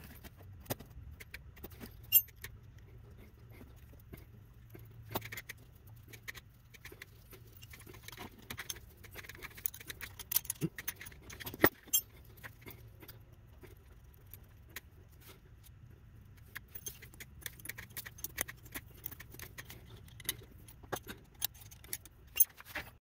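Small metal parts clinking and clicking as bolts, clamp brackets and a wrench are handled on a turbocharger's center housing and exhaust housing and set down on a concrete floor. Two sharper clinks stand out, about two seconds in and near twelve seconds, and the clicking gets busier in the last several seconds.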